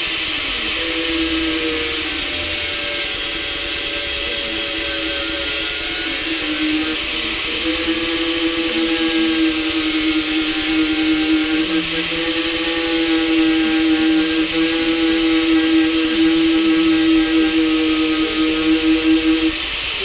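Angle grinder running continuously as it grinds the top of a boat's steering pedestal tube: a steady motor whine under a hiss of grinding, cutting off just before the end.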